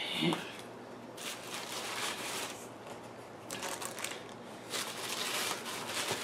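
Tissue paper and plastic packing rustling and crinkling in a cardboard box, in several spells as hands dig through the packing.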